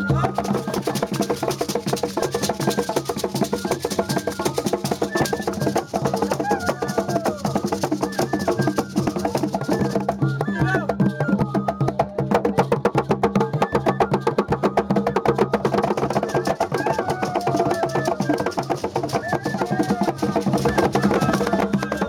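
Hide-headed hand drum struck with bare hands in a fast, continuous rhythm, with voices over the drumming.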